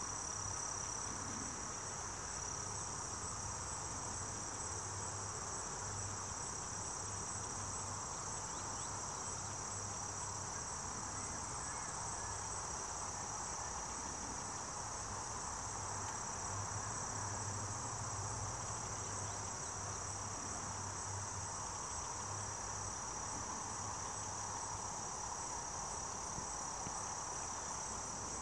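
Steady, unbroken high-pitched chorus of insects calling, with a fainter, lower hiss beneath it.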